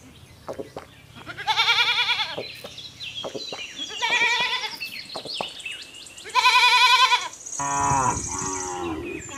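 Goat bleating: three long, wavering bleats a couple of seconds apart, then a lower call that falls in pitch near the end.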